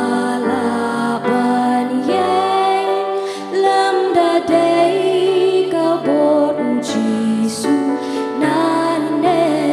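Three women singing a Khasi gospel song together to a keyboard accompaniment, the voices holding and gliding between notes over steady sustained low chords.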